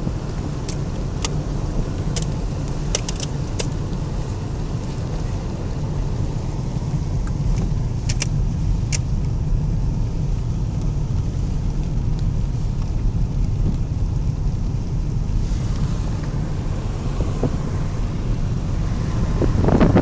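A car driving along a road, heard from inside the cabin: a steady low rumble of engine and tyres, with a few small clicks in the first half. Near the end, wind noise rises sharply on the microphone.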